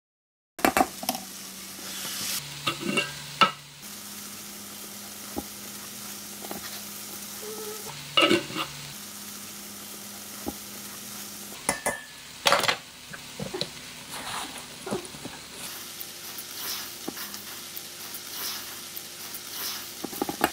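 A silicone spatula stirring a dry mix of rolled oats, rice and flour in a stainless steel bowl, with a grainy rustle and irregular sharper scrapes against the bowl. It starts about half a second in, over a faint steady low hum.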